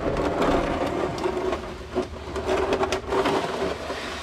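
A plastic oil drain pan, oil inside, dragged across a concrete floor: a continuous rough scrape with a few sharper scuffs.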